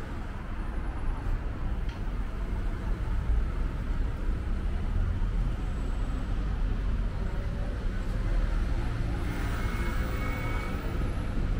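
Steady city street traffic noise: a continuous low rumble of passing cars.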